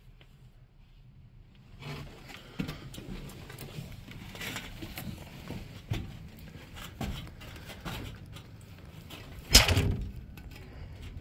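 Footsteps and scattered knocks as someone moves about, with one loud thump near the end.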